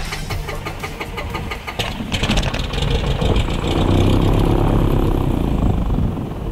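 Cessna 177RG Cardinal's fuel-injected four-cylinder Lycoming engine being started. The starter turns the propeller over in even strokes for about two seconds, then the engine catches and runs up loud before easing back near the end.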